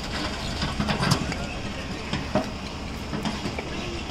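Hyundai tracked excavator's diesel engine running while its bucket knocks down a brick house wall, with scattered crashes and clatters of falling bricks and rubble, the loudest about a second in and again about two and a half seconds in.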